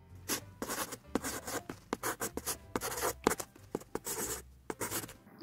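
Small graphite pencil scribbling on paper in quick, irregular scratchy strokes.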